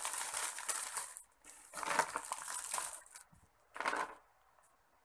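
Crisp snacks rattling into a plastic tub and plastic snack packets crinkling, in three bursts, the last a short one about four seconds in.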